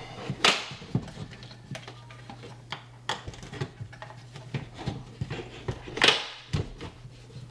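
Focal 300-series in-wall speaker being worked into a drywall cutout: handling knocks and sharp plastic clacks and snaps, the loudest about half a second in and about six seconds in, as its spring-loaded dog-leg clamps snap against the wall.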